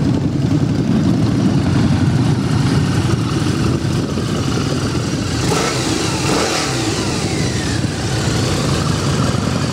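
Several motorcycles riding past, their engines running and revving, with one engine's pitch falling as it goes by about six to eight seconds in.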